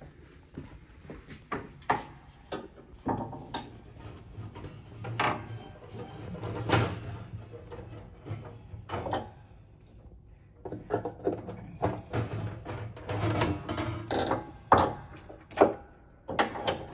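Gloved hands and metal tools working at the hitch-pin end of a Steinway L grand piano's bass strings: irregular clicks, knocks and scrapes. A low hum from the bass strings, set stirring by the handling, comes and goes in between.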